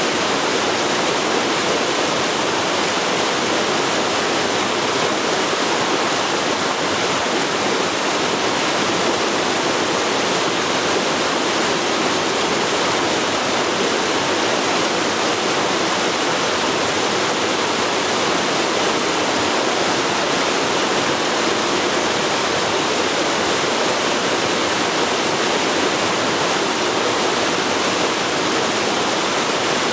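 Forest river flowing: a steady, even rush of running water, with no changes.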